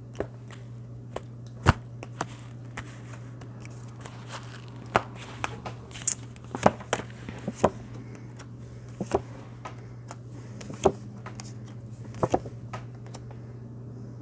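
Tarot cards being handled and laid out: scattered light clicks and rustles at irregular intervals over a steady low electrical hum.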